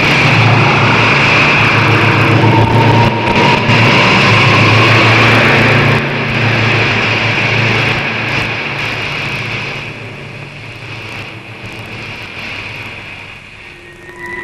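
Rocket engine sound effect: a loud, steady rushing noise that fades away over the last few seconds.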